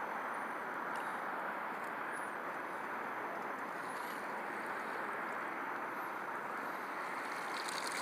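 Steady outdoor rushing noise that does not change, with faint short high chirps about every two seconds.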